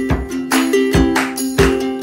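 Background music with a steady beat and a repeating melody.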